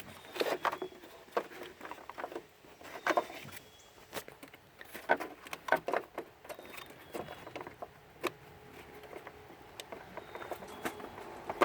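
Irregular light clicks, taps and rustles of hands handling a car's turn signal bulb socket and the wiring around it in the engine bay.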